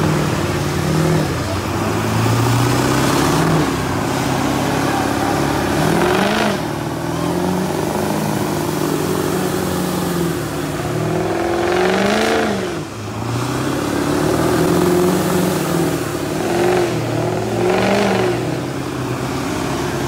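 Mega truck engines running loudly and revving repeatedly, the pitch climbing and falling again several times.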